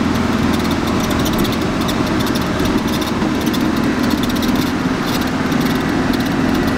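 Motorhome engine and road noise heard from inside the cab while driving: a steady low hum with no change in pace.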